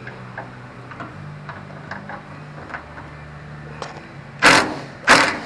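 An impact wrench being used on a car door molding bolt: faint small clicks at first, then two short loud bursts of the wrench near the end.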